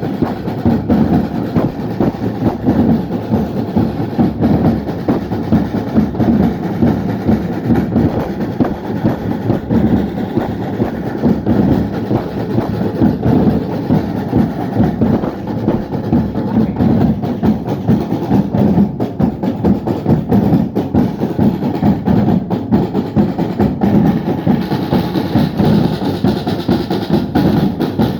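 A drum band of many drums playing together in a dense, continuous, driving beat during a drum-off. A brighter, hissier layer joins near the end.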